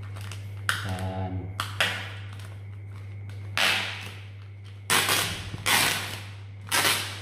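Thin plastic wrapping rustling and crinkling in several short bursts as it is pulled open by hand around a carrying bag.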